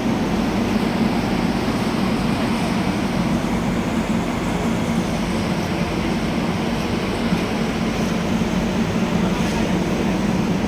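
Train at a railway station: steady, even mechanical noise with a constant low hum, holding level throughout.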